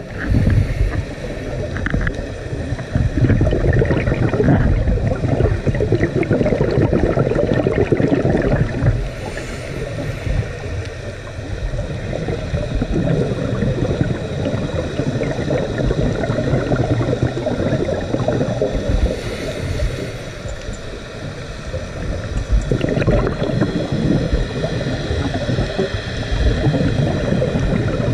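Underwater recording: a fluctuating low rushing and gurgling of water and bubbles around the camera, with brief fainter hissing about ten seconds apart.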